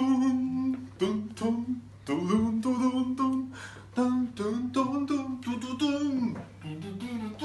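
A person singing a lively tune on wordless syllables like 'tu-tu-tu' and 'ta-ta-tam', in short phrases with brief breaks between them.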